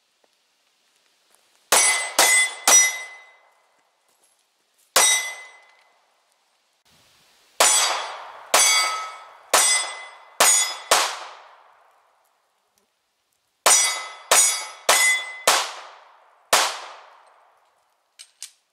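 Fourteen shots from a Smith & Wesson M&P40 Compact .40 S&W pistol, fired in strings: three quick shots, a single shot, then two strings of five, each shot trailing a short ringing decay. Two faint clicks near the end.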